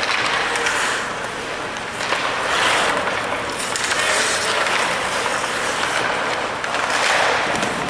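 Ice hockey skate blades carving and scraping across the ice, a hiss that swells and fades every second or two as players skate through a drill.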